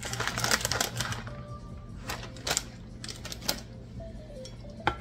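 Plastic bag of shredded Parmesan crinkling and crackling as it is handled, in a run of sharp clicks densest in the first second, then a few single clicks. Quiet background music plays underneath.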